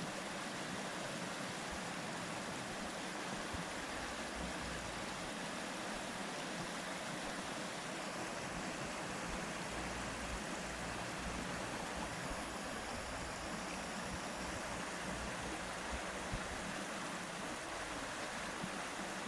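Flowing water rushing steadily, like a stream running over stones, with a low rumble that comes and goes underneath.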